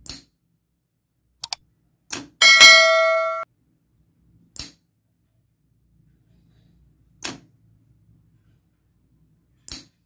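Single sharp clicks every few seconds from the relay and solenoid lock switching as the app toggles them. About two seconds in, a bright ringing ding lasting about a second cuts off abruptly: a subscribe-button bell sound effect.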